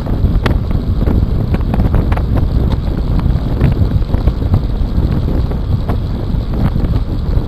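Wind buffeting the microphone of a bicycle-mounted camera at about 45 km/h, with steady road rumble and irregular rattling knocks as the bike runs over the rough road surface.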